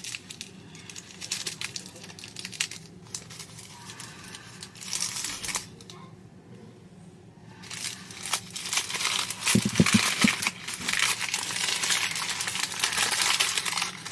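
Brown wrapping paper crinkling and rustling as a small paper parcel is unwrapped by hand. The crinkling is sparse at first, goes quieter for a moment partway through, then grows dense and louder through the second half, with a brief knock about ten seconds in.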